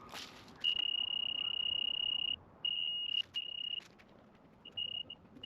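Laser level beeping: a steady high electronic tone, first held for about a second and a half, then broken into shorter beeps with gaps.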